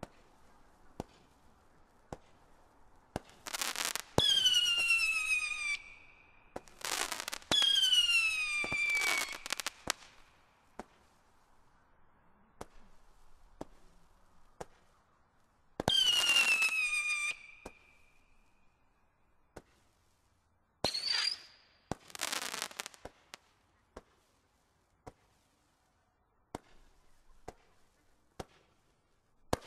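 Stealth Fireworks 'Seismic Shock' barrage firing shot by shot: sharp pops from the launches, and several loud whistling screamers, each whistle lasting a second or two. The first few fall in pitch, and the later ones are shorter and rise.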